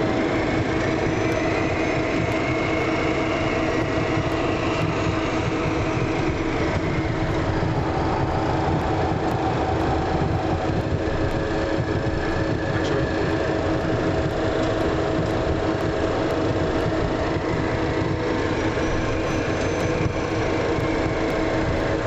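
Cessna Citation CJ2's twin Williams FJ44 turbofan engines running, heard from inside the aircraft: a steady rush with a constant hum and a faint whine that slowly rises and falls.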